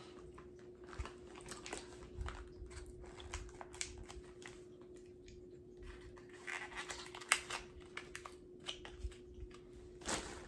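Plastic packaging being handled and pulled at by hand, with irregular crinkles and sharp clicks and a sharp click in the middle. A faint steady hum runs underneath.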